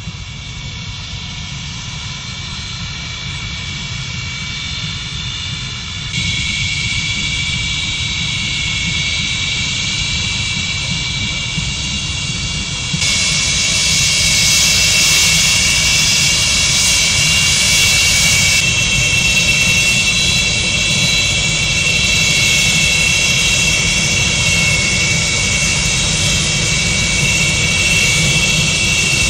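Antonov An-225 Mriya's six turbofan jet engines running at taxi power: a steady high whine over a low rumble. The sound gets louder in two steps, about six and about thirteen seconds in.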